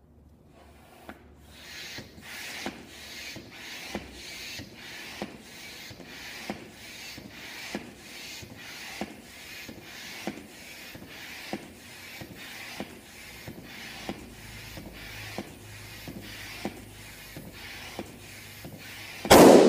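Upright hand air pump inflating a latex balloon, with a rush of air on each stroke, about three strokes every two seconds. Near the end the overinflated balloon bursts with a loud pop.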